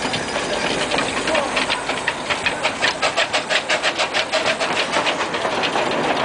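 Miniature 15-inch-gauge steam locomotive 6284 chuffing as it runs past with its train: quick, even exhaust beats, about five a second, clearest through the middle, over a steady hiss.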